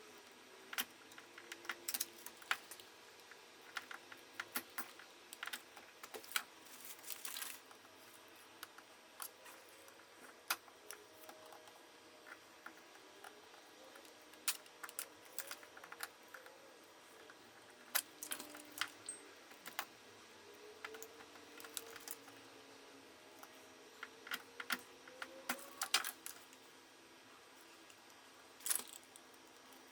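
Irregular small clicks and scrapes of a hand tool working along the seam of a plastic auto-darkening welding lens cartridge, prying and cutting to split the case open.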